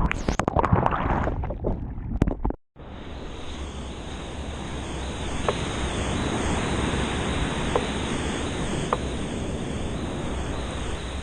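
Typhoon wind noise: loud and gusty with crackles and knocks at first, then, after a sudden cut about two and a half seconds in, a steady rushing hiss.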